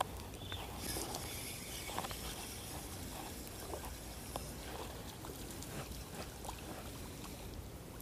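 Ultralight spinning reel being cranked to retrieve a lure, a light whirring with small clicks, over the steady trickle of a shallow creek. A sharp click at the very start, as the cast ends.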